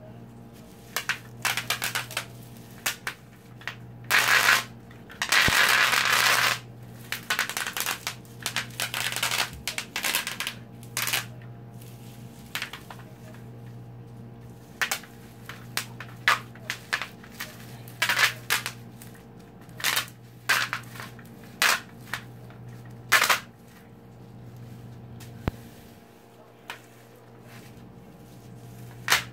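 Bubble wrap popping as a tube is rolled over the sheet by hand: irregular sharp pops, with a dense crackling run of pops about four to six seconds in, then scattered single pops and short clusters.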